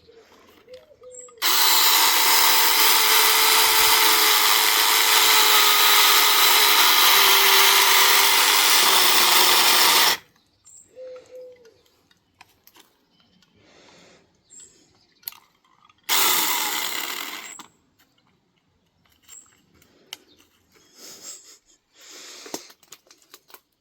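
Cordless mini chainsaw running, its chain cutting into thick wood for about eight seconds, then cutting out; a second short run that fades about six seconds later.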